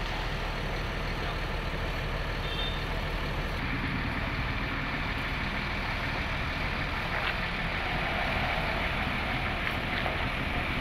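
Coach bus diesel engine running steadily, with a short high beep about two and a half seconds in. Before four seconds the sound shifts as the coach drives off across the yard.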